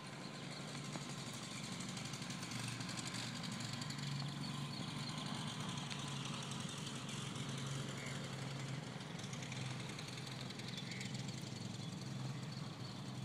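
An engine running steadily, a low even hum that holds without change.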